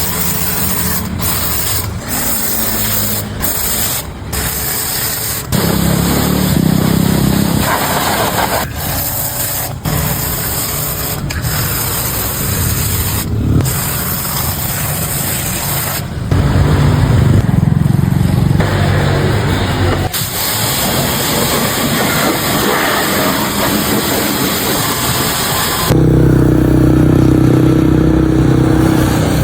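Autopramie AP-JC 8800 jet cleaner (high-pressure washer) running: a steady motor and pump hum under a hiss of spraying water. The sound changes abruptly several times, growing louder and deeper about 5 s, 16 s and 26 s in.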